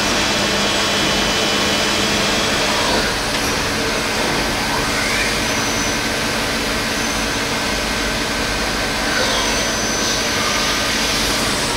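Steady hum and whir of running machine-tool equipment, several steady tones over a constant noise, with a brief rising whine about five seconds in.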